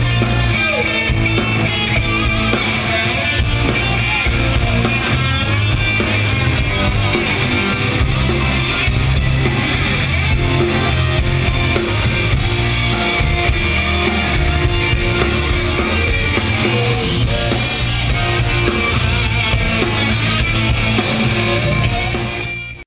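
Live rock band playing with a steady drum beat and guitar. It fades out quickly near the end.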